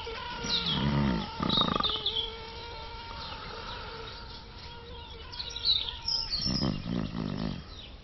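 A thin, steady insect whine with scattered high chirps, broken twice by the restless sleeper's low vocal sounds, once about a second in and again near the end.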